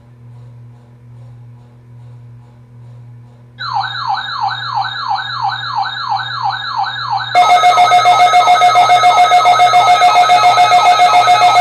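Electronic siren sounding in rapid falling sweeps, about three a second, over a low hum; it starts about a third of the way in. About two-thirds in, a much louder layer of steady tones joins it and the sweeps carry on.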